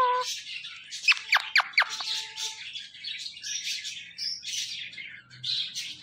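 Indian ringneck parakeet chattering in scratchy, high squawks, with a run of four quick falling whistles about a second in, followed by a short held note.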